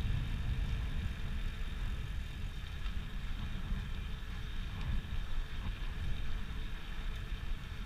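Wind buffeting the microphone as a bicycle rolls along an asphalt trail, a shifting low rumble over a steady hiss of tyre and riding noise.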